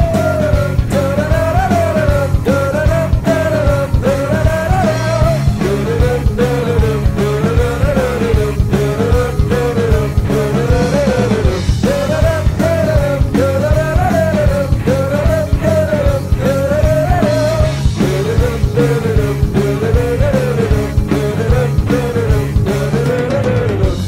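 Hockey goal song: loud rock music with a driving beat and a short melody, with some singing, repeating about once a second.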